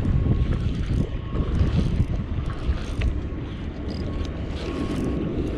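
Wind buffeting the microphone, a dense low rumble, with a sharp click about three seconds in.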